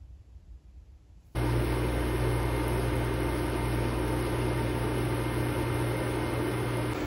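Faint room tone, then about a second in a steady noise starts abruptly: an induction cooktop running, its cooling fan and electric hum, as it heats a pot of water.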